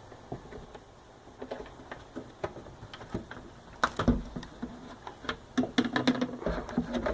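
Irregular clicks and knocks. They come sparsely at first, then grow denser and louder from about halfway, with a few dull low thuds among them.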